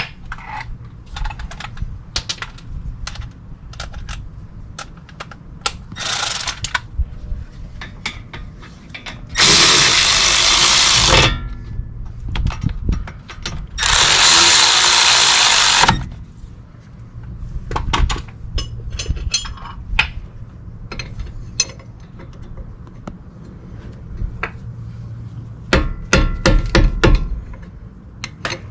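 A handheld power tool runs in two steady bursts of about two seconds each, starting about a third of the way in and again around halfway, likely driving home the brake caliper bolts. Clicks and clatter of tools and parts come in between, and a run of rapid clicking comes near the end.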